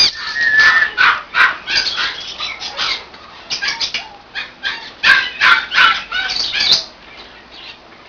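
A pet conure making a fast, irregular run of short scratchy sounds for about seven seconds, then quieting near the end.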